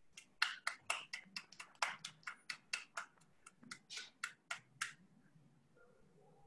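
Hands clapping, quick and even at about five claps a second, stopping about five seconds in.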